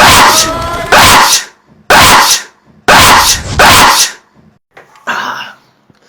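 Five very loud, abrupt vocal bursts, each about half a second long and roughly a second apart. A quieter, shorter sound comes near the end.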